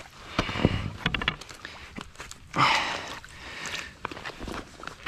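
An axe knocking into pond ice a couple of times in the first second, then icy water sloshing and loose ice pieces clinking as gloved hands reach into the chopped hole and pull at sticks, with a splash about two and a half seconds in.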